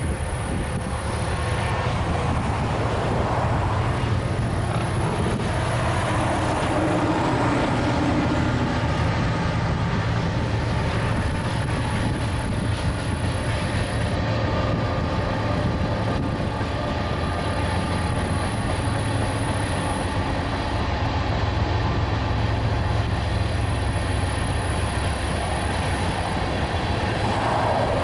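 Freight train passing: the lead diesel locomotives go by at the start, then a long string of loaded hopper cars rolls past, steel wheels on rail making a steady low rumble.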